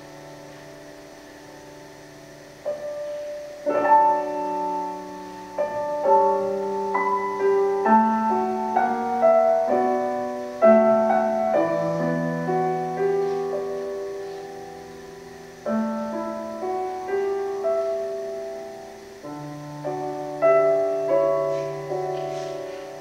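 Solo piano music: quiet held notes at first, then a run of struck notes and chords from about three seconds in, easing off near the end.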